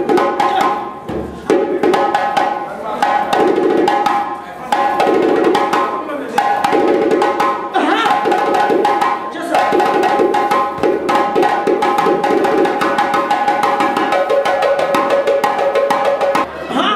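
Burkinabe djembe drumming: several djembes fitted with rattling metal jingle plates, played fast and hard in a dense, driving rhythm, with steady held tones above the drums.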